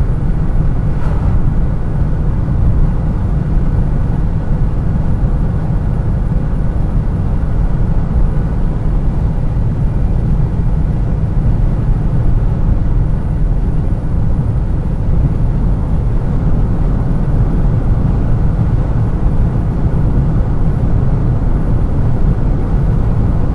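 Steady low rumble of tyre and road noise heard inside a car's cabin while cruising at about 120 km/h on a highway.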